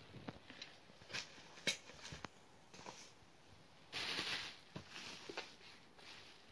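Handling of a boxed album set on bubble wrap: scattered light taps and clicks, with a louder crinkling rustle of the bubble wrap about four seconds in.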